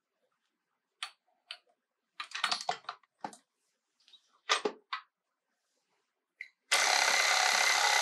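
A few scattered clicks and knocks of the dough hook and bowl being handled, then about seven seconds in the KitchenAid stand mixer's motor starts suddenly and runs steadily at low speed, kneading the dough.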